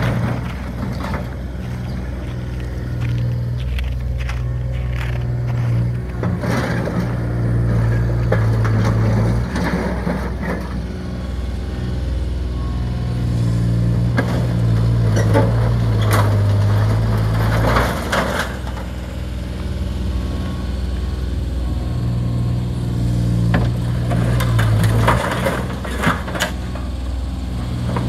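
Skid-steer loader engine running under changing load as the machine drives over and crushes a collapsed above-ground pool, with repeated crunching and cracking of the pool's metal walls and frame.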